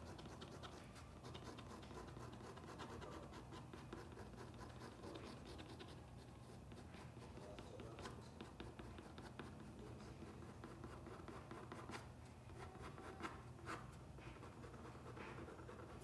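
Pen nib scratching on paper in many short, quick strokes, faint over a low steady hum.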